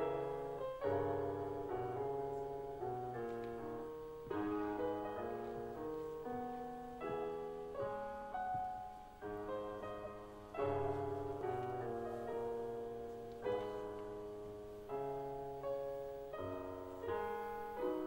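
Solo piano music: slow chords struck one after another, each left to ring and fade before the next.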